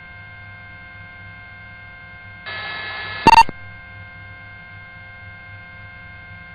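Two-way police radio audio between transmissions: a steady hum with faint high steady tones. About two and a half seconds in, it is broken by nearly a second of static hiss that ends in a short, loud electronic beep.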